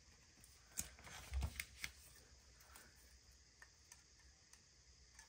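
Faint clicks and taps of a craft knife and sticker paper being handled on a desk, with a soft thump about one and a half seconds in, then only scattered light ticks.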